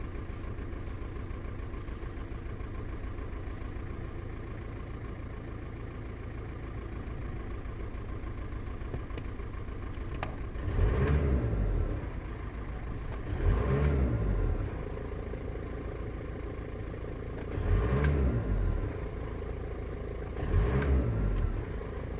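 Volkswagen Passat engine idling, then revved in four short throttle blips in the second half. The car has logged a cylinder 1 misfire (fault 000769 / P0301).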